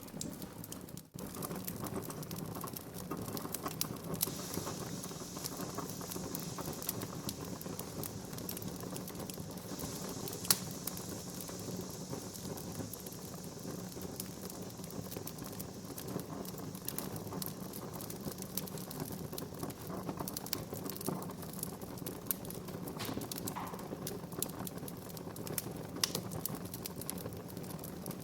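Wood fire burning in a fireplace, crackling and popping steadily over a low rumble, with a stretch of soft hissing and one sharp loud pop about ten seconds in.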